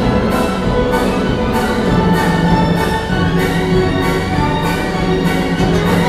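Full orchestra playing classical music from a CD through a pair of Dali Helicon 400 MK2 stereo loudspeakers, heard in the room, with a regular pulse of accented notes a little under two a second.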